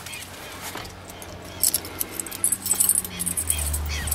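A bunch of keys jingling and clinking for about two seconds as a trailer's exterior compartment is opened; a low steady hum comes in near the end.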